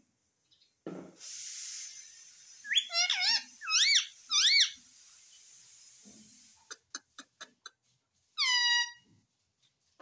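Indian ringneck parrot giving a quick run of shrill, pitch-gliding calls about three seconds in, then a single falling call near the end. A steady hiss sits underneath for several seconds, with a few faint clicks.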